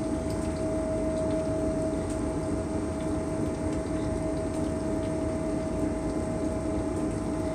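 Steady machinery hum aboard a towboat: an even low rumble under a constant mid-pitched whine. Faint soft scrapes of a wooden spoon spreading mashed potato in a metal pan sit over it.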